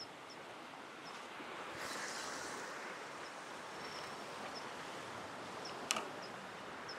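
A fishing rod being cast: a brief swish about two seconds in, then a single sharp click just before six seconds, over a steady hiss of wind and sea. A faint high chirp repeats about once a second throughout.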